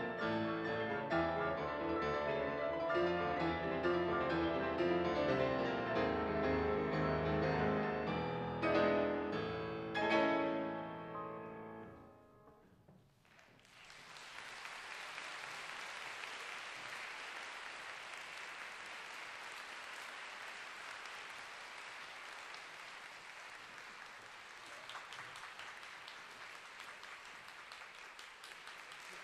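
Two grand pianos playing a classical piece together. The music closes about ten seconds in on a final chord that rings away. After a short hush, the audience breaks into steady applause.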